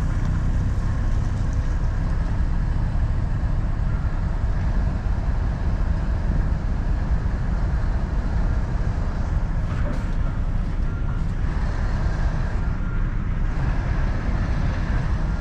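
Pickup truck engine idling steadily: a low, even rumble.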